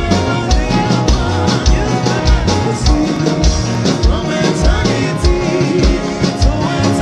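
Gospel worship band playing a steady beat with drums, bass and keyboard, with a voice gliding through wordless vocal runs over it.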